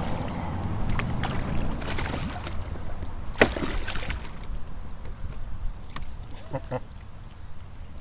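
Kayak on the water: water sloshing against the hull, with several sharp knocks and clicks, the loudest about three and a half seconds in, and a brief call near the end.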